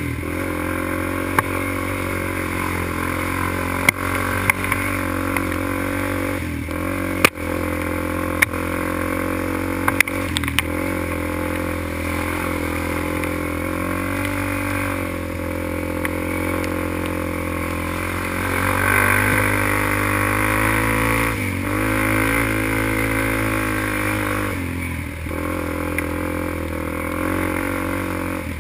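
ATV engine running under throttle, its pitch rising and falling as the rider speeds up, eases off and shifts. A few sharp knocks come from the machine jolting over the rough trail.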